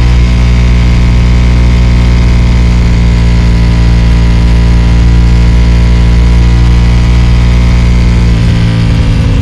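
Ducati XDiavel S's 1262 cc Testastretta V-twin running through a full Termignoni exhaust, held at steady revs while cruising. The note wavers briefly near the end.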